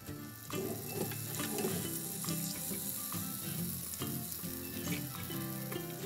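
A pat of butter sizzling as it melts in a hot cast-iron grill pan, pushed across the ridges with tongs, with a few small clicks.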